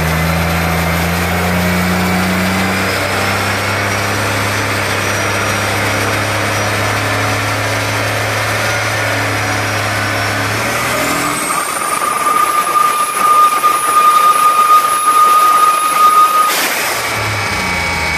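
Turbocharged Pontiac Grand Prix 3800 V6 running hard on a chassis dyno. About eleven seconds in, a high turbo whine rises sharply and holds while the run grows louder and rougher. Near the end there is a sudden break and the engine drops back to a lower note.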